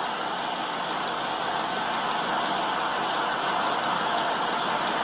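Steady vehicle noise, an engine running with road hiss, growing gradually louder.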